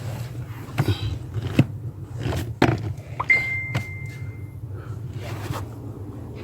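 Hand tools knocking and clinking on metal under a car's dashboard while the pedal assembly is being worked loose: a few sharp knocks, with a short high squeak about three seconds in, over a steady low hum.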